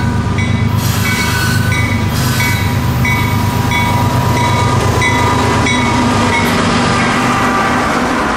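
Locomotive bell ringing steadily, about two strikes a second, over the heavy rumble of CSX diesel locomotives passing close by at the head of a freight train.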